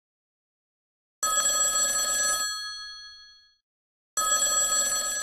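Old-fashioned telephone bell ringing twice, starting about a second in; each ring lasts about a second and a quarter, the first fading away after it stops.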